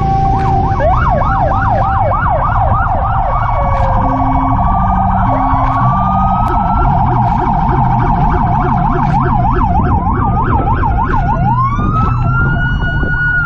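Several emergency-vehicle sirens sounding at once, a fast yelp and a slow rising and falling wail overlapping, over a steady low engine rumble.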